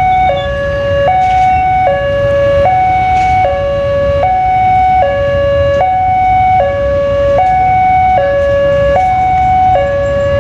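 Railway level-crossing warning alarm sounding, a steady electronic two-tone signal alternating high and low about every 0.8 s, over a low rumble. It signals that a train is approaching.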